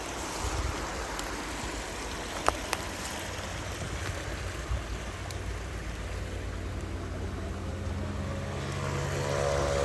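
Steady rushing of a mountain stream, with a low rumble and a few sharp clicks about two and a half seconds in. Music fades in near the end.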